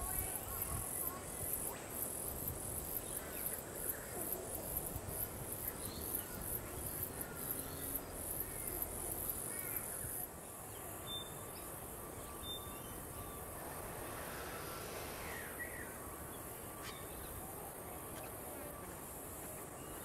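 A high-pitched insect chorus, pulsing in a quick, even rhythm, changing about halfway through to a steady unbroken drone.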